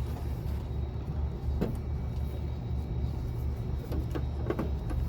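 A steady low rumble, with a few light metallic knocks and clinks about a third of the way in and again near the end, as a car's starter motor is wiggled loose by hand from its mount.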